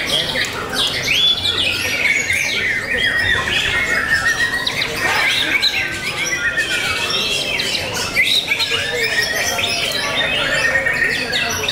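White-rumped shama (murai batu) singing a continuous, varied run of quick whistles and chirps, with other caged songbirds calling alongside.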